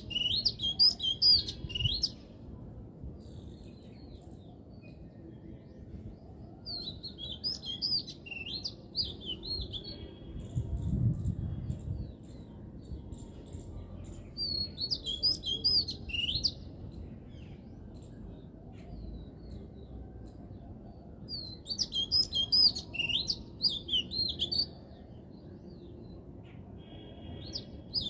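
A songbird singing quick, warbling phrases of high, twisting notes, each phrase lasting two to three seconds and repeated about every seven seconds, over a steady low background hum.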